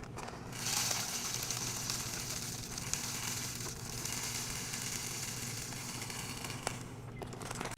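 Birdseed pouring through a funnel into a hanging bird feeder, a steady hiss of many small seeds that starts about half a second in.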